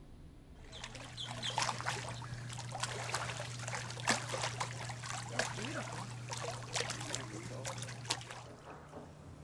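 Swimming-pool water splashing and trickling: many small sharp splashes over a low steady hum, starting abruptly about a second in and fading near the end.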